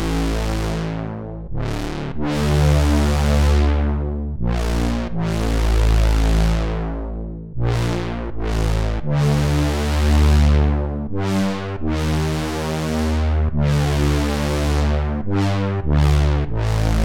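Arturia OB-Xa V software synthesizer, an emulation of the Oberheim OB-Xa analog polysynth, playing a sequence of bass-heavy polyphonic chords. Each chord starts bright and darkens over a second or two before the next one comes in.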